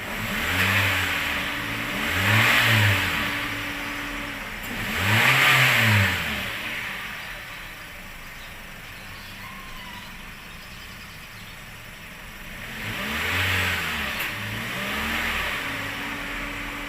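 Toyota Vios 1NR 1.3-litre four-cylinder engine idling and revved in short blips, each rising and falling in pitch: three in the first six seconds, then a steady idle, then two more near the end. The engine is being run up to check for a misfire after a new ignition coil was fitted.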